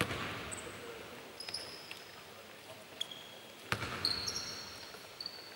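Basketball shoes squeaking on a hardwood court in short, high chirps, with a basketball bouncing. The loudest bounce lands about two-thirds of the way through and rings on in the hall.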